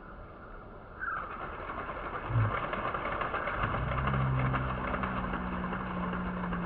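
A dense, steady hiss starts about a second in, and a steady low engine hum joins it about halfway through.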